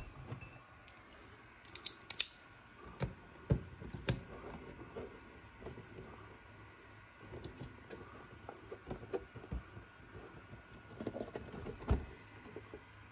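Irregular clicks, taps and knocks of small RC parts and tools being handled on a workbench, then a rock crawler's chassis and wheel being handled as the wheel is fitted; the sharpest click comes about two seconds in and a louder knock near the end.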